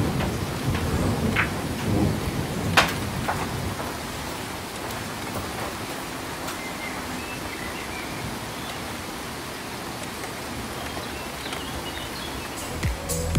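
Steady, even rushing outdoor noise, heaviest in the first few seconds, with a few sharp knocks in the first three seconds.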